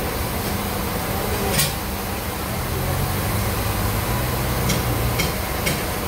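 Band sawmill running: a steady mechanical hum and noise, with a sharp click about a second and a half in and several short clicks near the end.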